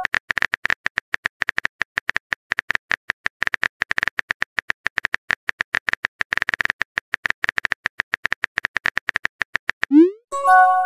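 Rapid, irregular tap-clicks of a chat app's keyboard-typing sound effect. Near the end comes a quick rising swoop and a short chime, the sound of a message being sent.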